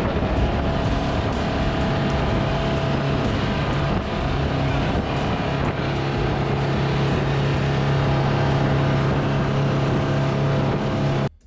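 Motorboat running at speed: a steady engine drone mixed with wind on the microphone and rushing water, cutting off suddenly near the end.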